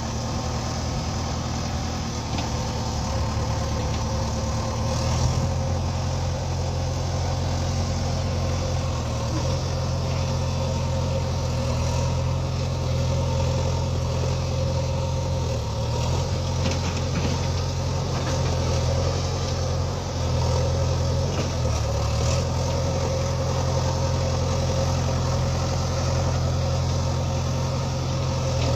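JCB 3DX backhoe loader's diesel engine running steadily, its note dipping briefly a few times.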